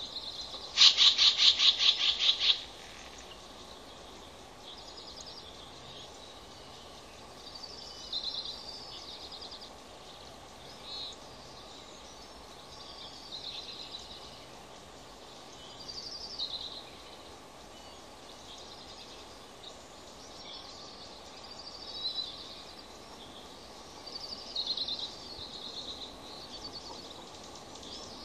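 Bald eagle chattering call: a loud, rapid run of high piping notes lasting about two seconds near the start. Softer clusters of high chirps follow every few seconds.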